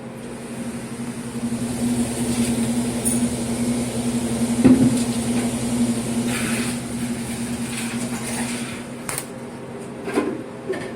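A steady low machine hum that swells and then eases off, with a single knock about halfway through and a couple of clicks near the end.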